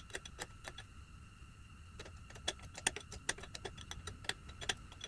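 Scattered light metallic clicks, several a second and irregular, from a wrench turning the Allis-Chalmers WD45's engine over by hand.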